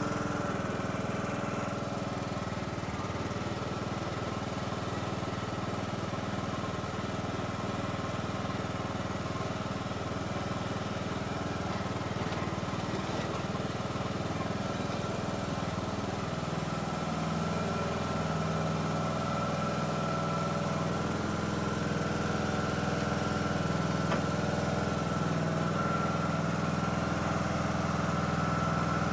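Husqvarna riding lawn tractor engine running steadily as the tractor is driven, getting a little louder in the lower part of its note from about halfway.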